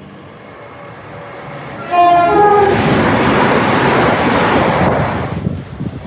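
A passing train sounds a quick two-note horn, then goes by at speed with a loud rushing noise. The noise stops abruptly about five and a half seconds in.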